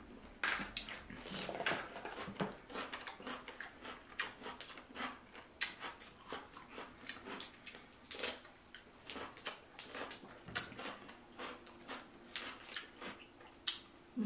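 Close-miked eating of a seafood boil: irregular wet smacks, sucking and clicks from mouths and sauce-covered fingers, with the crackle of crawfish and shrimp shells being handled.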